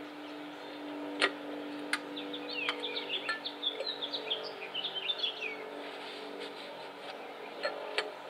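A songbird twittering a rapid string of chirps for a few seconds, over a faint steady hum. A few sharp clicks and taps come from parts being handled under a truck's hood, the loudest about a second in.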